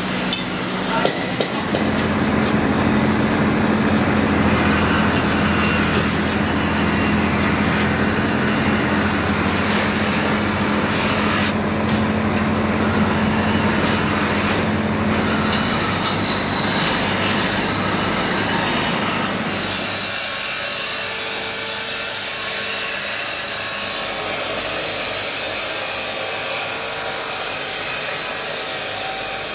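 Electric polishing wheel running with a steady motor hum while a knife blade is pressed against it and rubbed along its face. About twenty seconds in the hum stops and a lighter, hissing workshop machine noise takes over.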